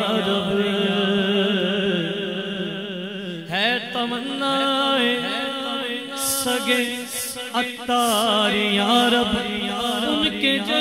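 A man singing a naat in long, drawn-out, wavering notes with no distinct words, his voice sliding and ornamenting around each held pitch and moving to a new pitch about three and a half seconds in.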